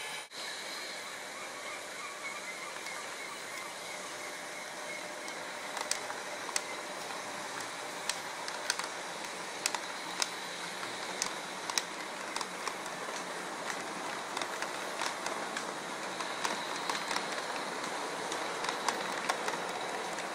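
Lionel model train running along the layout track, a steady rolling rumble with irregular sharp clicks of the wheels over the rail joints from about six seconds in.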